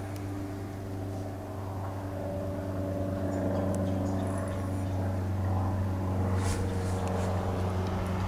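Steady low mechanical hum with motor-vehicle traffic noise that swells a little in the middle.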